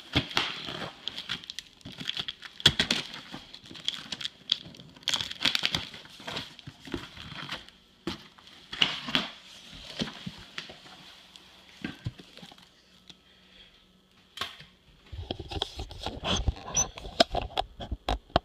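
Packing material and cardboard rustling, crinkling and tearing as a shipping box is unpacked by hand, with irregular scrapes and taps throughout and a busier stretch of handling near the end.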